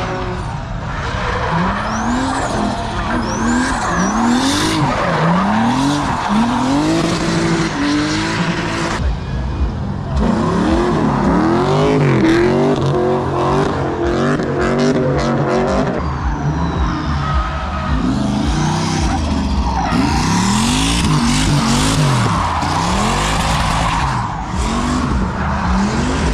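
Drift cars' engines revving up and falling back again and again as they slide past, with tyres skidding and squealing.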